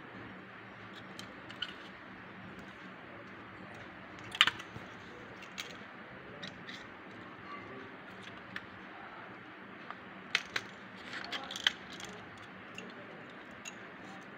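Scattered small clicks and knocks of homemade toy harvester parts being handled and fitted together by hand. The sharpest comes a little over four seconds in, and a quick cluster of them about three quarters of the way through.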